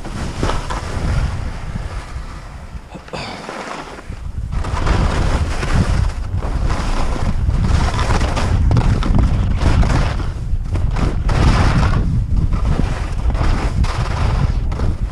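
Wind buffeting the microphone of a skier's body-mounted camera during a fast run, mixed with the hiss and scrape of skis over wind-crusted snow. It dips briefly, then grows louder about four and a half seconds in and stays loud.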